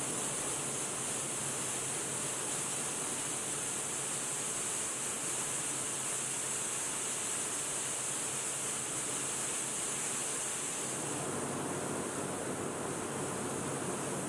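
Steady hissing din of match-splint processing machinery running, with no rhythm or single impacts; a deeper rumble joins about eleven seconds in.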